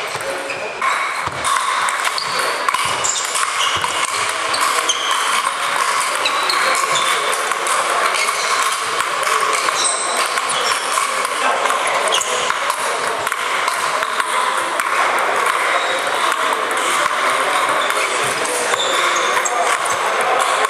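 Table tennis balls clicking off sandpaper bats and the table in quick rallies, with other tables' rallies and a murmur of voices echoing around a large hall.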